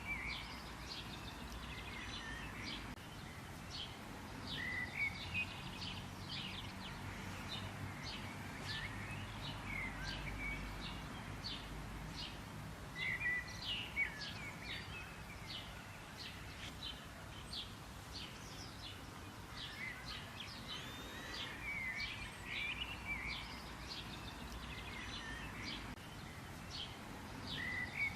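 Birds chirping and singing: a steady run of short, high chirps, with bursts of curving whistled phrases every few seconds, over a low steady background rumble.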